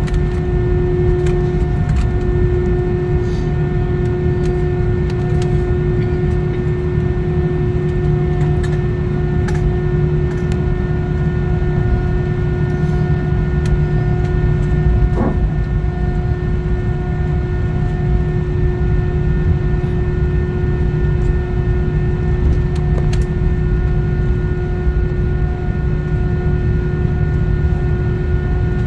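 Inside the cabin of an Airbus A319-132 airliner taxiing after landing: the steady low rumble and constant hum of its IAE V2500 engines at idle.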